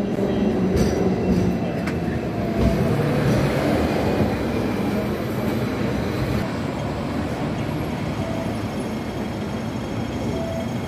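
Hong Kong double-decker tram running along its street tracks, heard from on board: a steady rumble and rattle of steel wheels on the rails, with a few sharp knocks in the first three seconds.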